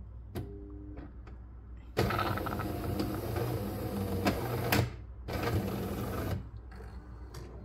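Jura automatic coffee machine running in two mechanical bursts, about three seconds and then about a second, with a short pause between.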